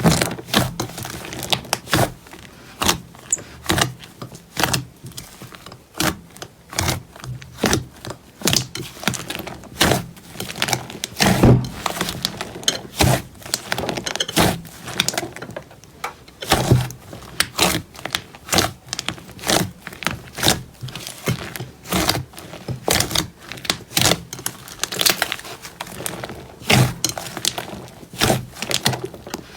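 Slime being squeezed and pressed by hand, giving an uneven run of sharp clicks and pops, several a second.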